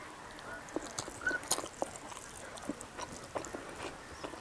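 Close-miked chewing and wet mouth clicks as a person eats rice and vegetables by hand: an irregular string of short smacks and clicks.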